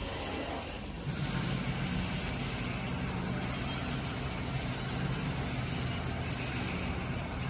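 Automatic flip mattress tape edge sewing machine running: a steady mechanical hum, with a thin high whine that starts about a second in and stops near the end.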